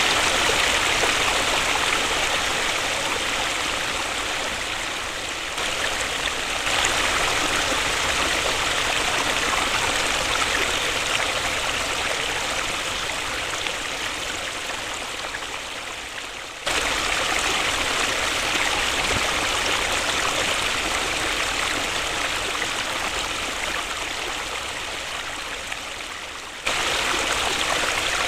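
Waterfall rushing steadily, an even hiss of falling water. The level slowly sags and then jumps back up abruptly about every ten seconds.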